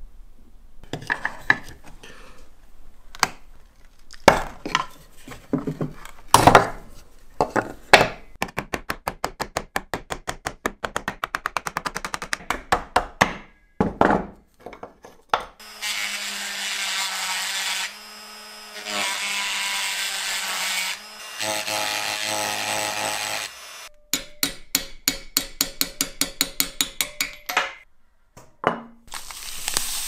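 Hand-tool and power-tool work on parts of an old coffee grinder. It starts with scattered knocks and taps. Then come runs of rapid, evenly spaced strokes at about five a second, and in the middle a small electric power tool runs steadily with a low hum, stopping briefly twice.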